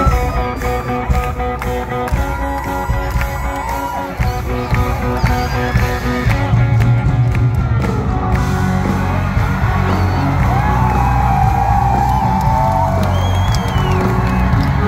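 Loud music through an outdoor concert sound system, with the crowd cheering and whooping over it. The bass and overall level grow heavier about six seconds in.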